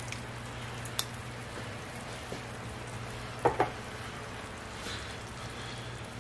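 Sautéed celery, onion and green pepper sizzling steadily in an enamelled pot as crushed tomatoes are poured in and spread. A sharp click about a second in and a couple of knocks about three and a half seconds in.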